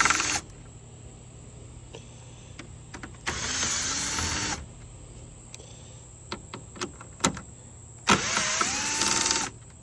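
Cordless drill/driver with a socket bit spinning out 10 mm hex bolts: three short runs of the motor, one stopping just after the start, one about three seconds in and one near the end, whose whine rises in pitch and then holds. Small clicks of the socket on the bolts come between the runs.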